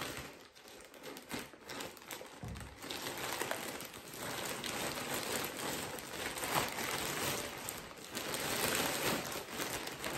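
Packaging being unwrapped by hand: white wrapping from a mailed parcel crinkling and rustling, fainter at first and then continuous after about two and a half seconds.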